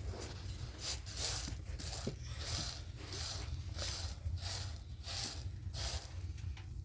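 Rhythmic swishing or scraping strokes, about one every half-second or so, which stop shortly before the end, over a steady low hum.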